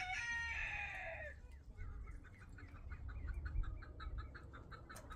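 A rooster finishing a crow, the long call dropping away about a second in, followed by a fast, even run of clucks from a chicken.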